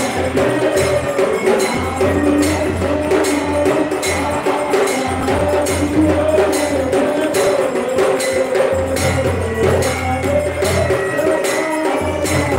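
Devotional aarti music: a steady beat of percussion strikes, about three a second, with a ringing metallic sound, over a wavering melody and a low drone that comes and goes.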